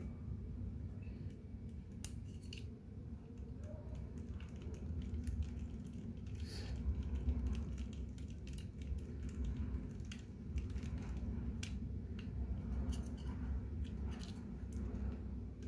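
Sparse light clicks and scrapes of small metal and plastic parts of a Colt 1911 CO2 BB pistol being handled, with a small screw being turned in the slide by a screwdriver, over a steady low hum.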